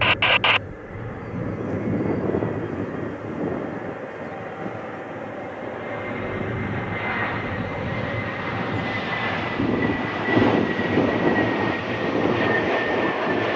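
Boeing 777's twin jet engines spooling up for takeoff on the runway: a steady high whine over rumbling jet noise that grows louder from about halfway through.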